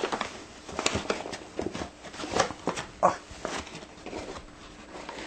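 A measuring cup scooping whole wheat flour and tipping it into a mixing bowl: an irregular run of soft scrapes and knocks.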